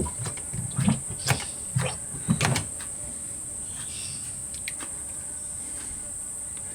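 Light clicks and knocks, about six in the first two and a half seconds, from the removed motorcycle rear brake master cylinder being handled on the bench to drain the last of its brake fluid. A steady high chirring of crickets runs underneath.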